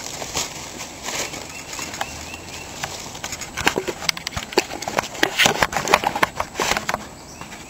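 Footsteps on leaf-littered ground and the rubbing and knocking of a hand-held camera being handled. The clicks and rustles grow denser and louder after about three and a half seconds and stop shortly before the end.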